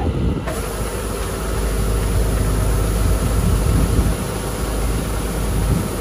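Rice combine harvester engine running steadily under load, with a rushing hiss of rice grain pouring from the unloading auger spout into a sack, which comes in about half a second in and then holds steady.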